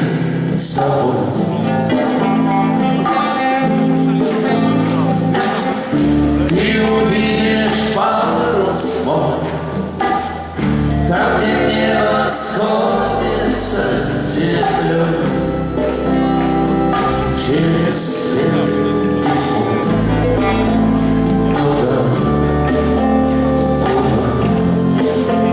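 A rock band playing live, with bass, drums and a singing voice over held chords.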